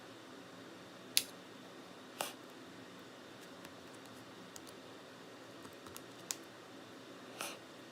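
Scattered sharp clicks and ticks from a spudger prying between the front and rear case of an iPod Classic to release its retaining clips, four louder clicks spread irregularly with fainter ticks between.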